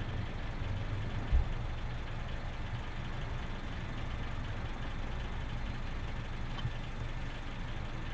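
Steady low background rumble, with a single thump about a second and a half in and a faint click later on.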